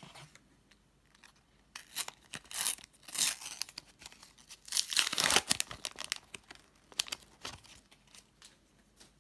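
Panini sticker packets being torn open by hand: irregular tearing and crinkling of the paper wrappers, loudest in two longer rips a few seconds apart.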